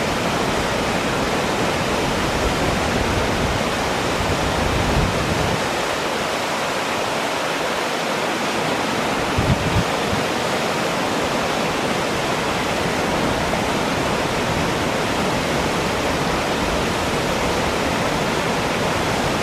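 Toxaway Falls, water sliding down a broad rock face and splashing into the pool below, giving a steady, dense rush. A brief low thump comes about halfway through.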